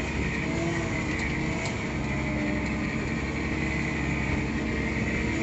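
Farm tractor's diesel engine running steadily, heard from inside the cab, as the tractor pushes into standing sugarcane to flatten it.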